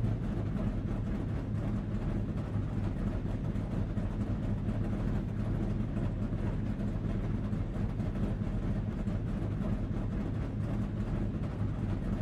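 Steady, unchanging vehicle-engine rumble with a low hum, fading in at the start and out at the end.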